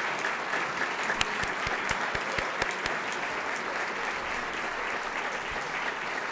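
Audience applauding in a standing ovation, a steady wash of many hands clapping. Between about one and three seconds in, one pair of hands close by claps louder, about four claps a second.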